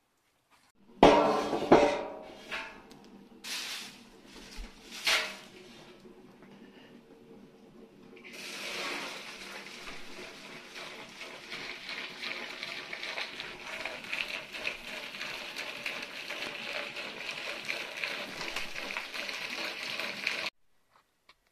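A few loud knocks in the first five seconds, then hot water runs from a tap into a galvanized metal basin, a steady splashing rush that starts about eight seconds in and cuts off suddenly near the end.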